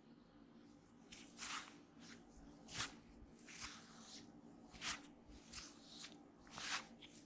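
Oiled hands rubbing over skin and hair during a deep-tissue oil head and neck massage: a series of soft, irregular swishing strokes, about one a second.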